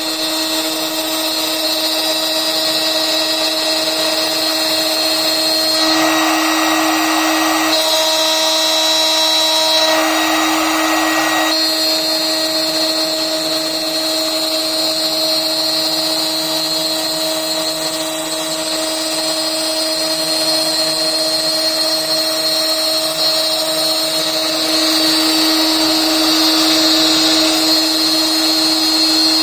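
The HSD electric spindle of an A.M.MA Extrema Q10 CNC router whines steadily at a constant high pitch while its end mill cuts the outer profile of a PVC sheet. A louder, rougher cutting noise swells up twice, about six and ten seconds in.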